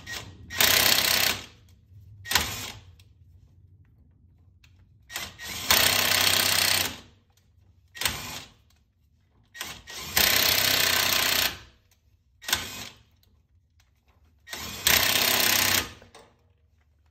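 Cordless impact wrench hammering in repeated bursts, four longer runs of a second or more with short blips between them. It is driving a lug nut onto a new wheel stud in the front hub to draw the stud through.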